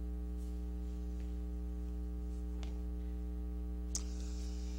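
Steady low electrical mains hum, with one faint click about four seconds in.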